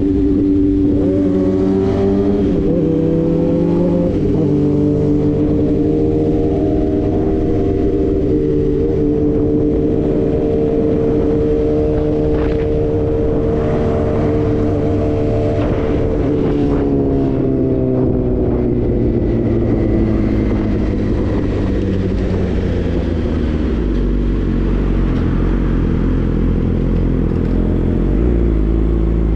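Suzuki GSX-R 1000 superbike's inline-four engine under way. Its pitch climbs in steps through the first few seconds, holds steady while cruising, then falls away as the bike slows, settling to a low rumble near the end.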